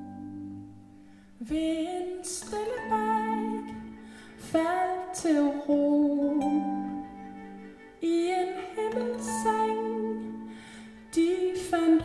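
Live acoustic band music: voices singing slow phrases, each starting anew about every three seconds, over held bowed-cello notes.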